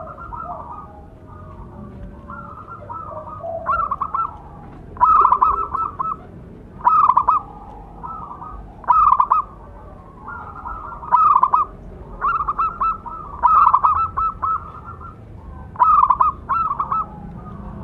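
Zebra dove (perkutut) cooing: about eight loud, short phrases of rapid, rattling coo notes, repeated every second or two, with fainter coos in between.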